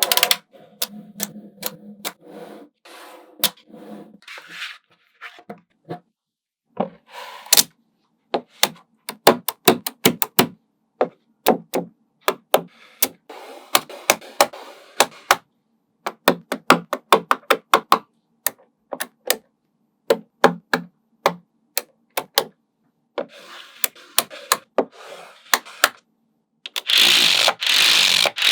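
Small magnetic balls clicking and snapping onto one another as they are placed, in irregular single clicks and quick clattering runs, with a longer rattle of many balls near the end.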